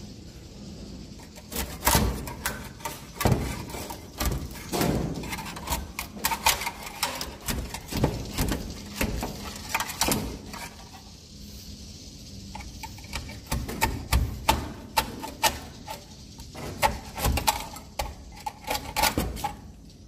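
Irregular knocking and scraping as a net on a long pole is worked against wooden rafters to pry swiftlet nests loose, with quieter gaps between bouts of sharp knocks.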